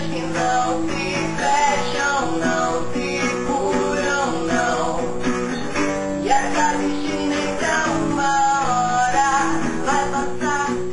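Acoustic guitar strummed as accompaniment to a man and a woman singing together.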